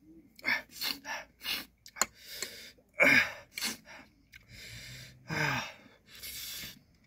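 A man gasping and breathing hard through his mouth, with short sharp intakes of air and sniffs, from the burn of very spicy noodles. Two louder voiced gasps come about three and five and a half seconds in.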